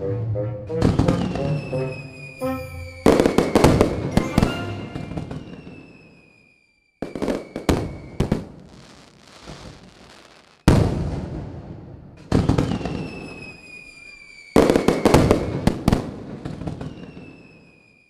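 Fireworks: about five bangs a few seconds apart, each followed by crackling and a slightly falling whistle that die away over a few seconds. Music plays for the first few seconds.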